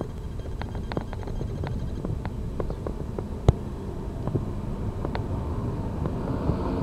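Outdoor street ambience: a steady low rumble with scattered sharp clicks, one louder about three and a half seconds in. Near the end a car's noise begins to build.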